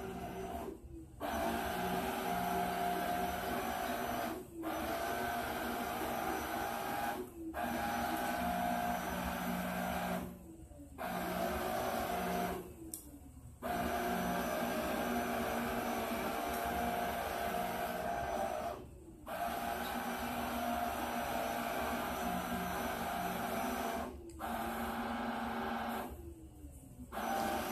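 Robot vacuum cleaner running with a steady mechanical whir. About eight times it drops out briefly, its pitch sliding down, then starts up again.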